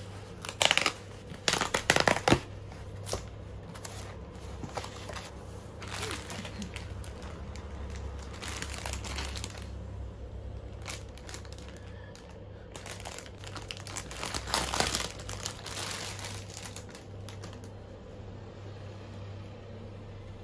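Cardboard mailer being torn open with a few sharp rips in the first couple of seconds, then a clear plastic packaging bag crinkling and rustling in handled bursts. A low steady hum runs underneath.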